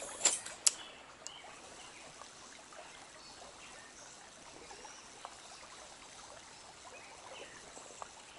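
Steady trickle of stream water. Two sharp clicks, about half a second apart, come within the first second.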